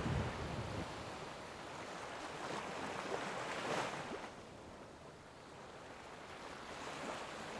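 Sea water rushing and splashing along the hulls of a sailing catamaran under way, swelling about three to four seconds in and then easing off.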